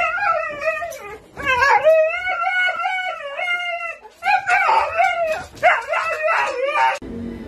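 Husky howling in long wavering calls, in three stretches with short breaks about a second and about four seconds in; it stops suddenly near the end.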